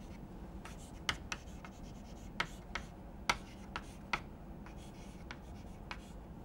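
Chalk writing on a chalkboard: a string of short, sharp taps and scratches as letters are written, thickest in the first four seconds and sparser after.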